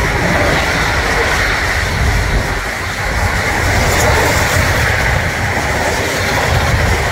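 Intermodal container freight train's wagons running past close by, their wheels on the rails making a steady rumble with a higher hiss.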